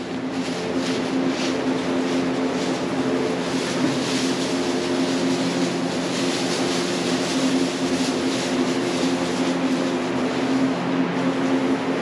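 A steady machine hum with several held tones, with rustling and light stepping in straw bedding as dairy cows move about.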